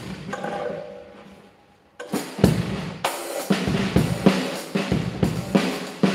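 Acoustic drum kit played with sticks. A drum rings out and dies away over the first two seconds, then a steady beat of snare, bass drum and cymbals starts up about two seconds in.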